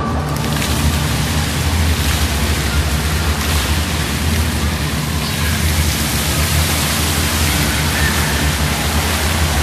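Indoor fountain jets splashing into a shallow pool: a steady rush of falling water, with a low hum underneath.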